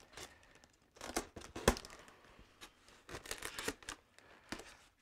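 Packaging being handled: uneven rustling, scraping and a few sharp clicks and tearing sounds as parts are worked loose inside a styrofoam shipping box.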